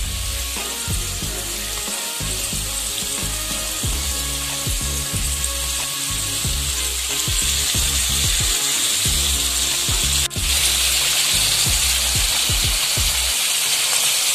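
Chopped onion, tomato, garlic and green chillies sizzling steadily in hot oil in a pan, just after a spice masala has been added, with scattered low knocks. There is a brief break about ten seconds in.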